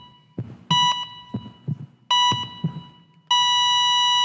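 A heartbeat thumping in double beats under a hospital patient-monitor tone sounding in long beeps. About three seconds in the beeps become one continuous flatline tone and the heartbeat stops. These are the song's opening sound effects.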